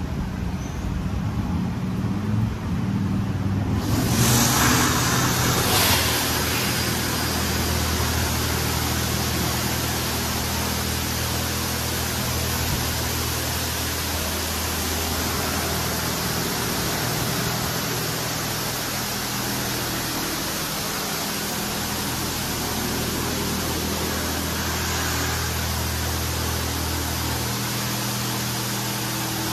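PDQ LaserWash M5 touchless car wash spraying a car: the gantry's spray arm starts hissing loudly about four seconds in and keeps up a steady rush of water spray, over a low machine hum that drops out near the end.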